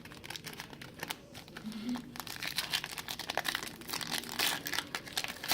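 Foil wrapper of a trading card pack crinkling as it is handled and opened: a dense, irregular run of crackles that thickens after the first couple of seconds.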